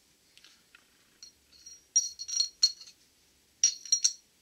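Steel transmission parts on a Borg-Warner T-10 mainshaft clinking and ringing against each other as they are handled and slid on. A cluster of light metallic clinks comes about two seconds in, and another near the end.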